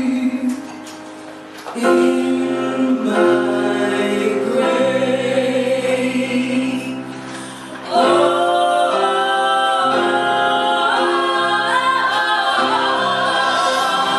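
Women's voices singing a song live in close harmony, with held chords. Twice it falls to a softer passage and swells back; from about eight seconds in a loud lead voice with vibrato rises over the group.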